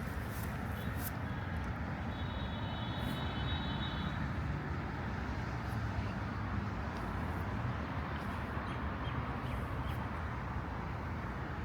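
Steady low rumble of city road traffic, with a faint high-pitched tone for a few seconds from about a second in.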